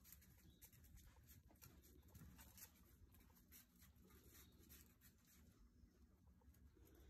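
Faint, irregular patter and scratching of basset hound puppies' paws and claws on concrete.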